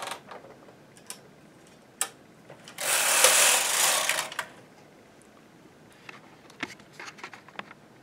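Brother flatbed knitting machine carriage pushed across the needle bed to knit a row: a loud sliding rush lasting about a second and a half, with single clicks before it and a few after.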